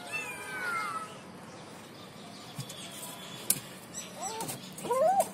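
Kittens meowing: a high mew that falls in pitch right at the start, then two arching meows about four and five seconds in, the second the loudest. A single sharp click comes about three and a half seconds in.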